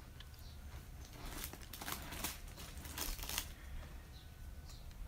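Soft crinkling and rustling in several short bursts between about one and three and a half seconds in.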